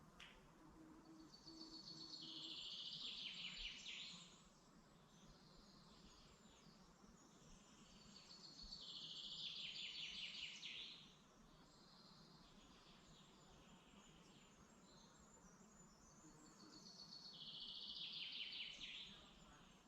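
A forest songbird singing the same phrase three times, about every seven seconds. Each phrase is a quick run of high notes that falls in pitch and lasts about three seconds, over a faint steady forest background.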